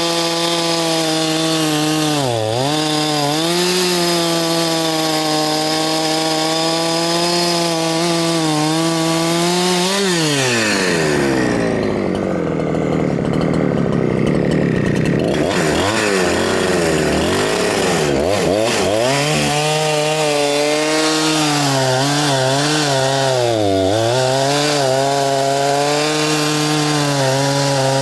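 Huyosen 6524 chainsaw, a Husqvarna 365 clone, running at a steady high speed. About ten seconds in, the engine speed drops sharply and it runs rough and uneven for several seconds before picking back up to a steady speed, with a couple of brief dips near the end.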